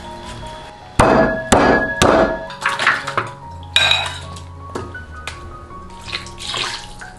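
A cleaver chopping three times through raw pork ribs on a wooden chopping block, half a second apart. Then chopped pork is tipped from a bowl into water in a wok for blanching, with splashing and a clink, and liquid is poured in near the end. Soft background music throughout.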